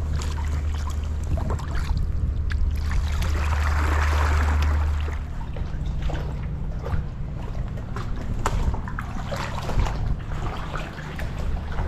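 Double-bladed kayak paddle strokes splashing into sea water, with water dripping and trickling off the blades. A low steady hum sits underneath for about the first five seconds, then stops.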